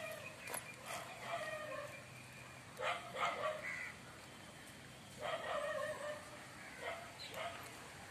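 An animal calling four times at uneven intervals, each a short pitched cry lasting under a second, with a few faint clicks near the start.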